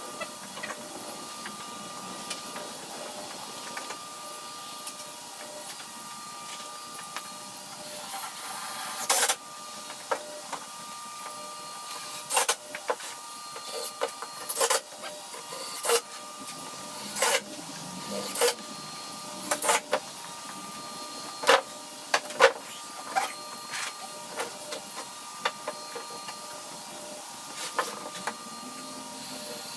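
Cordless drill running in short bursts, over a dozen of them, each under a second, as it works into the wooden boards.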